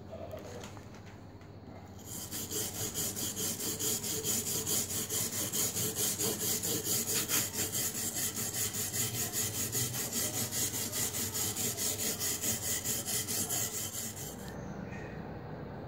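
Abrasive block scrubbed rapidly back and forth over a corroded iron sword blade, a rhythmic gritty scraping that starts about two seconds in and stops suddenly near the end. It is the sound of the blade's rust crust being scoured off during restoration.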